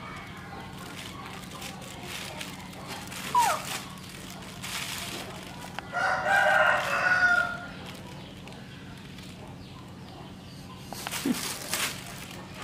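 A rooster crows once, a long call of about a second and a half around the middle, over the intermittent crinkle of a plastic bag being handled.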